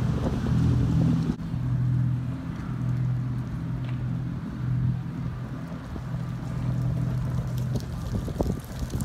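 Boat engine droning at a low, steady pitch, pulsing slightly in strength.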